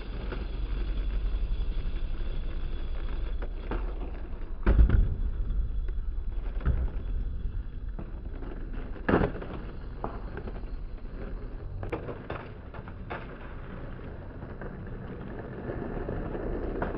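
Skateboard wheels rolling over asphalt in a steady low rumble, broken by sharp clacks of the board striking the ground, the loudest about five and nine seconds in.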